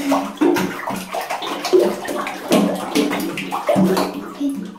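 Water thickened into gooey slime by Slime Baff bath powder, splashed and sloshed by children's hands in a bathtub, in a rapid string of short splashes.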